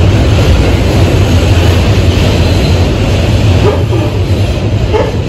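Kawasaki R188 subway train running, heard from on board: loud, steady rumbling noise over a low hum. Faint voices come in near the end.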